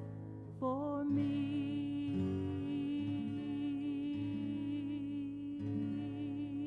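A woman's voice holding one long sung note with vibrato over plucked acoustic guitar, the guitar notes changing about every second; it is the final held note of the song.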